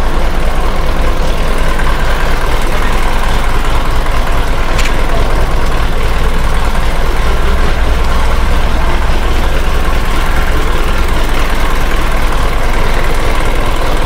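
Force Cruiser diesel engine idling steadily while hydroxy gas from a decarbonizing machine is drawn in through its air filter to burn off carbon deposits.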